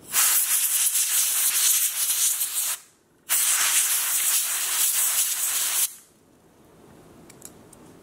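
Canned compressed air blowing through its straw in two hissing bursts of about two and a half seconds each, stopping sharply, as it dusts out the optical chamber of a photoelectric smoke alarm to clear the spider webbing that was breaking the light path and setting off false alarms.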